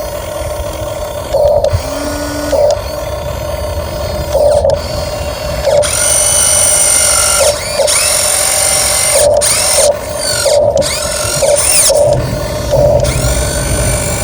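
RC model dump truck's electric motor and gearbox whining as it drives. The whine comes in stretches of a second or two and slides up and down in pitch as the throttle changes, over a rough mechanical rattle.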